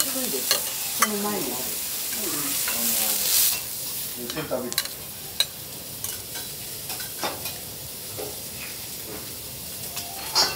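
Food sizzling on a hot teppanyaki steel griddle, with scattered sharp clinks and scrapes of a metal spatula on the griddle and a spoon against a metal sauce boat; a louder scrape comes about three seconds in.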